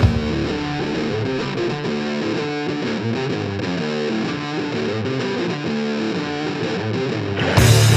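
Background music: a distorted guitar riff of stepping notes. Near the end a louder, fuller band section comes in.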